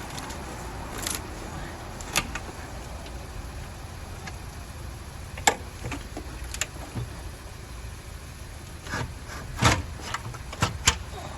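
Hand tools and metal engine parts clicking and clanking now and then as a V8 is being taken apart, over a steady low hum. The sharpest clanks come near the middle and in a cluster toward the end.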